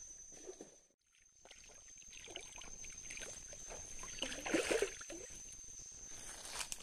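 A hooked fish splashing and thrashing at the water's surface, loudest about four and a half seconds in, after a brief drop-out about a second in.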